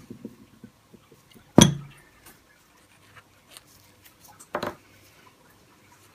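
Suzuki SV650 brake pads and caliper being handled as the pads are fitted back in: a sharp metallic knock about a second and a half in that rings briefly, a second knock about three seconds later, and small clicks between.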